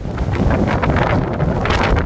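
Gusty blizzard wind buffeting the microphone: a heavy low rumble with surges of rushing noise, the strongest gust near the end.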